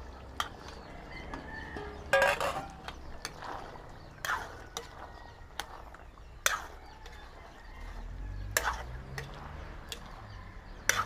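A metal spatula clinking and scraping against a large aluminium wok, with scattered knocks, as chopped broccoli is tipped in and stirred through beef in thick sauce. A low steady rumble comes in a little past the middle.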